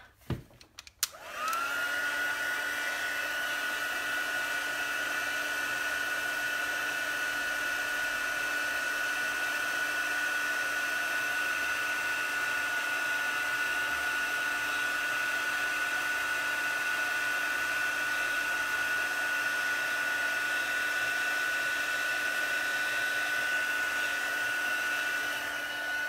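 Handheld craft heat tool (embossing heat gun) switched on about a second in: its fan motor whine rises briefly, then holds steady with a rush of blowing air, melting heat-embossing powder. It cuts off at the end.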